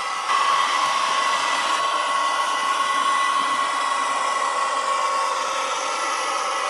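H0 model trains running on a layout: a steady whirring hum of small electric locomotive motors, with a thin steady whine on top.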